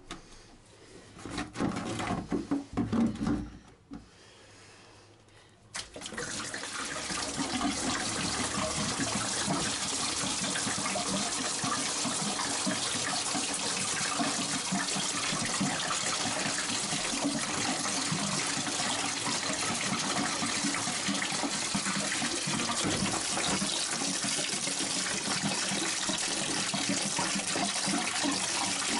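Green engine coolant gushing in a steady stream from the pulled-off bottom hose of a marine diesel's heat exchanger into a plastic bucket. The stream starts suddenly about six seconds in. Before it come a few seconds of knocks and handling noise as the hose is worked loose.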